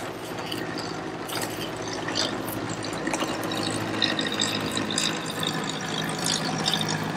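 Bait knife working through a mahi-mahi fillet with small crackling clicks, over a steady low hum and running water.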